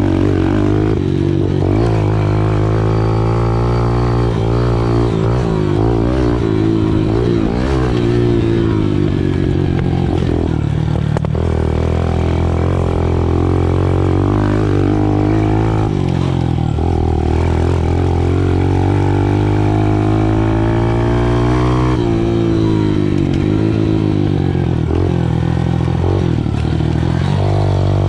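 Small 110cc dirt bike engine revving up and down continuously as it is ridden, the pitch climbing and dropping every few seconds.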